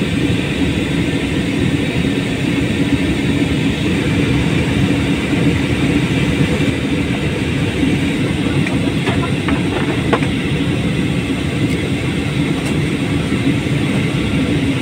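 Steady airliner cabin noise in flight: engine drone and rushing air heard from inside the cabin, with a low steady hum.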